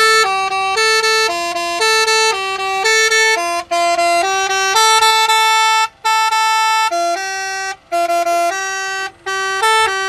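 Truck's basuri-style air horns, driven by an electronic horn module, playing tune number 6: a melody of two-note chords that step between pitches in short phrases, with brief breaks between them.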